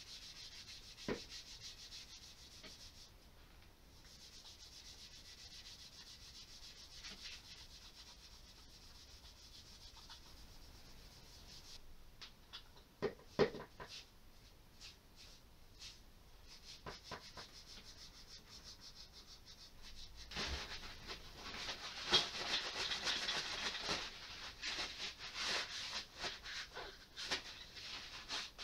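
Scrubbing pad rubbing over the wooden body of an antique plough plane, a steady hiss, louder and rougher in the last third. A few light knocks around the middle.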